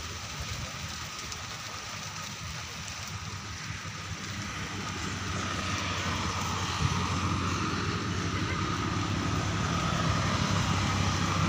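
An engine running over a steady outdoor hiss, growing louder through the second half as it draws nearer.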